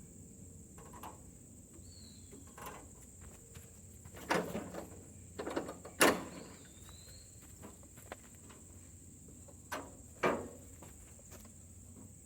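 A new band saw blade being worked onto the wheels and into the blade guides of a Frontier OS31 sawmill: a handful of sharp knocks and clatters, loudest about six seconds in.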